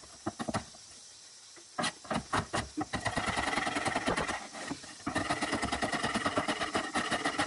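Chef's knife chopping red chili peppers on a plastic cutting board: quick knife strikes on the board. A brief pause near the start is followed by a fast, steady run of chops.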